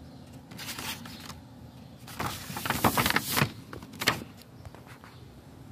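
A sheet of paper rustling and crinkling as a hand lifts and smooths it against a wall, in three bursts, the longest and loudest about halfway through.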